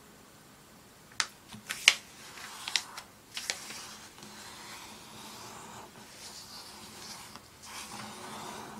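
A sheet of paper being unfolded and handled by hand: several sharp crackles between about one and three and a half seconds in, then a steady rustle of hands sliding over the paper to smooth the crease flat.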